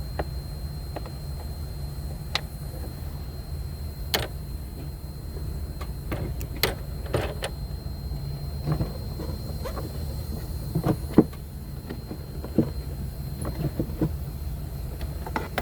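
Irregular clicks and clunks of hand tools and metal parts being handled, the loudest knock about two-thirds of the way through, over a steady low hum.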